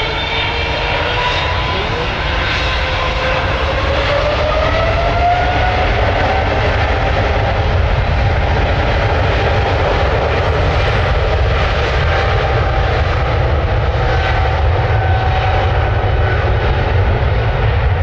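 Jet airliner engines spooling up: a whine climbs in pitch over a deep rumble for the first few seconds, then the engines run steadily at high power.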